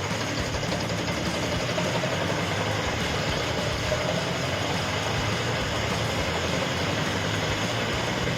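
Wood chipper running steadily: a constant engine drone under a dense, even noise.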